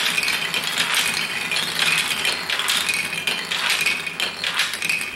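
Marbles rolling and clattering along the 3D-printed plastic tracks of a marble run: a dense stream of small clicks and rattles, with a ringing rolling tone that comes and goes.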